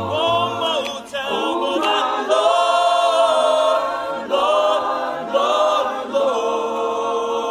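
A choir singing a worship song in long held phrases, with short breaks between them.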